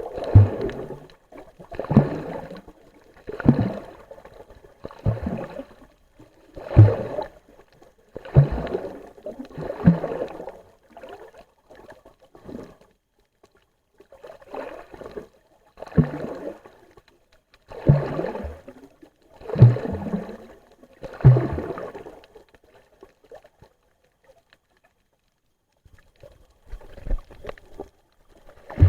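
Water sloshing and gurgling around an underwater camera in regular surges every one and a half to two seconds, each with a dull low thump, pausing for a few seconds near the end.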